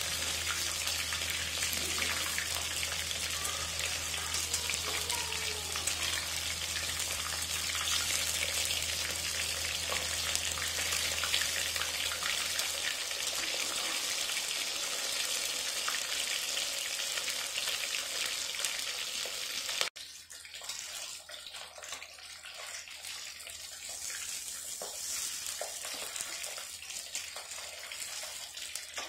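Rohu fish pieces frying in hot oil in a wok, a dense steady sizzle and crackle, with the spatula moving the pieces. About twenty seconds in it cuts abruptly to a quieter sizzle.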